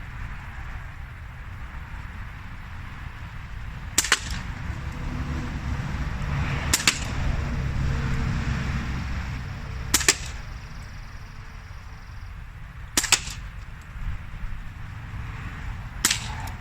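Crosman Vigilante CO2 pellet pistol firing five sharp shots, about one every three seconds, over a low steady rumble.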